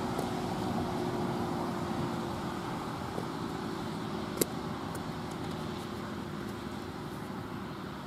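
ACA Allertor 125 rotating siren sounding faintly as a steady low tone that fades out within the first few seconds, over a steady background rumble. A single sharp click about halfway through.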